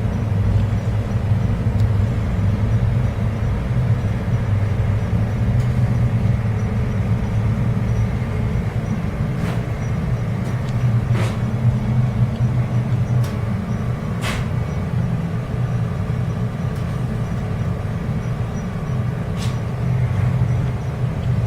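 Asphalt mixing plant running: a steady low rumble of its machinery, with a few sharp clicks or knocks about halfway through and near the end.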